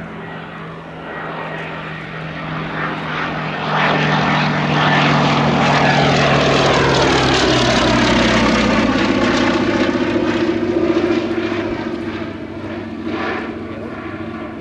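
Westland Lysander IIIA's nine-cylinder Bristol Mercury radial engine and propeller in a flypast. The engine sound builds as the aircraft approaches, is loudest in the middle, drops in pitch as it passes, and fades as it flies away.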